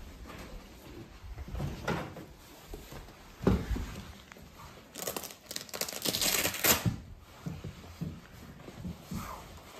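Winter boots being pulled on, with a heavy thump of a boot on the floor, then a velcro strap on a padded boot ripped open in a long rasping tear. Clothing rustles between them.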